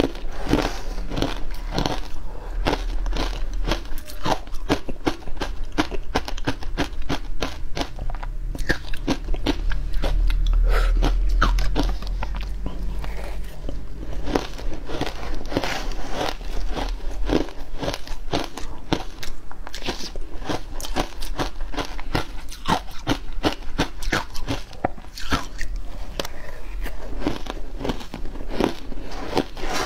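Frozen matcha ice being bitten and chewed close to the microphone: a dense, continuous run of sharp cracks and crunches over a low rumble.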